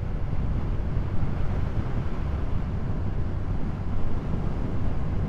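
Steady wind rushing and buffeting on a lavalier mic in a wind muff while riding a Yamaha MT-07 motorcycle at highway speed, with the engine and road noise running underneath. The small fly screen does little to keep the wind off.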